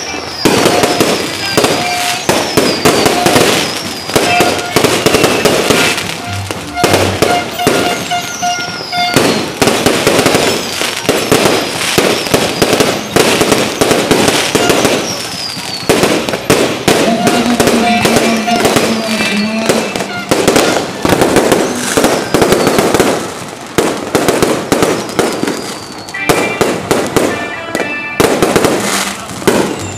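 Aerial fireworks going off close overhead in a dense run of bangs and crackling, with short whistles falling in pitch every few seconds.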